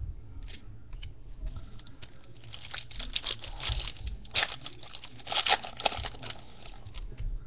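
Foil wrapper of a Topps Fire trading card pack crinkling and tearing as it is opened, in a run of rustling bursts, loudest past the middle.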